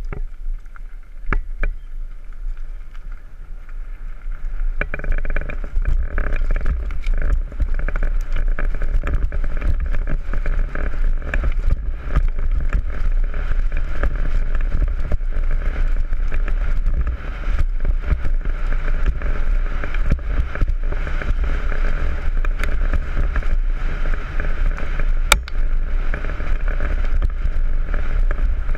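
Downhill mountain bike riding fast over rough trail, with wind rumble on the microphone and the bike clattering over bumps. It gets louder about five seconds in as the speed picks up.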